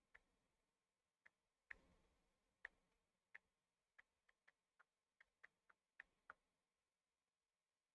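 Faint, irregular sharp clicks of small metal parts and tools on a watch movement being worked on, about a dozen and a half of them at uneven spacing, stopping a little after six seconds in.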